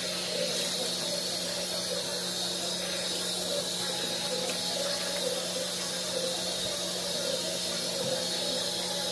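Bathroom sink tap running steadily into the basin as face wash is rinsed off by hand, with a steady low hum underneath.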